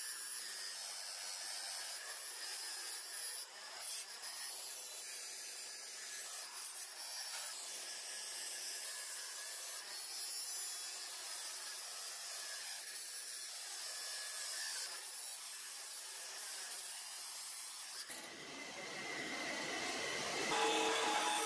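Steel knife blank pressed against a spinning pedestal grinder wheel: a steady hissing rasp of steel being ground. Near the end the grinding stops and a steady pitched hum comes in.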